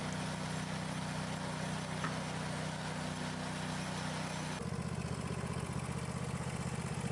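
Small engine of a walk-behind tractor running steadily while it drives a mini baler. About four and a half seconds in, the sound cuts to an engine with a fast, even pulsing beat.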